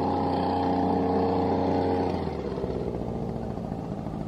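An engine running steadily at constant speed, then dropping to a lower, rougher note about two seconds in.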